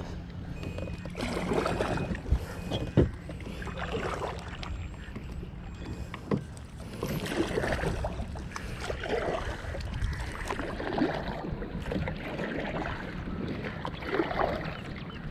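Double-bladed kayak paddle stroking through calm water, a soft swish and splash every second or two, with a couple of knocks against the kayak.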